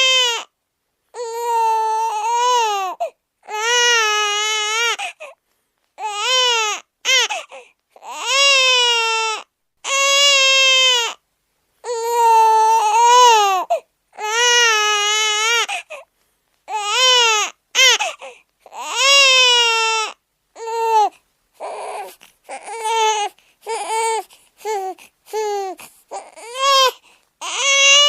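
A string of high-pitched crying wails, each about one to two seconds long, rising and falling in pitch, with sudden gaps of dead silence between them, as if edited together; the wails get shorter and choppier over the last several seconds.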